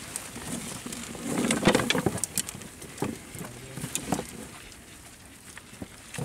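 Water splashing and dripping as a mesh fish trap is hauled up out of the river over the bow of a small wooden boat. There is a louder rush of water about a second and a half in, then scattered small knocks and drips.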